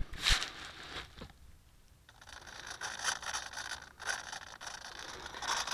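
Rustling and scraping handling noise from a small camera moved about close to grass and a foam model plane. There is a sharper scrape just after the start and a short lull near two seconds in.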